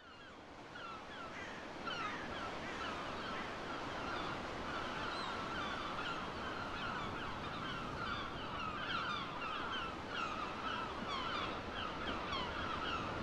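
A flock of birds calling all at once, many short falling calls overlapping, over a steady hiss. The sound fades in over the first two seconds.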